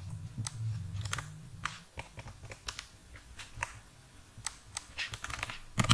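Computer keyboard and mouse clicking: about a dozen single, irregularly spaced taps as an axis title is typed in.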